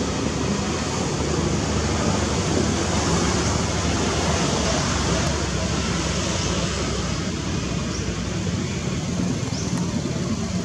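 Steady outdoor background noise, a constant rumble and hiss with no distinct event standing out.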